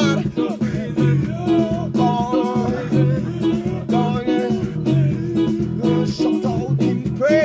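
Gospel music played live on an electronic keyboard with a steady rhythm, a voice singing along.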